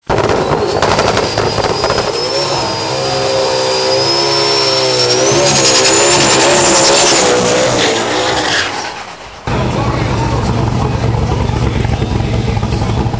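Turbocharged Ford Mustang GT V8 doing a burnout: tyre screech over the revving engine, with a thin high whistle rising partway through. About nine and a half seconds in the sound cuts abruptly to the engine at full throttle as the car launches down the drag strip.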